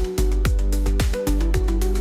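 Electronic music with a steady beat: deep kick drums about twice a second under held synth tones.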